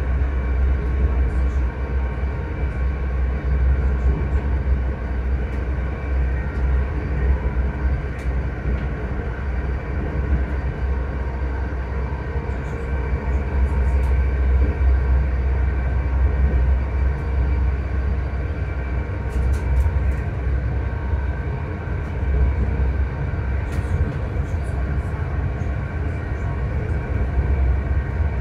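ScotRail Class 385 electric train's traction motors whining in several steady tones over a deep running rumble, heard inside the carriage by the doors. The train is holding a steady speed. A few light clicks come in now and then.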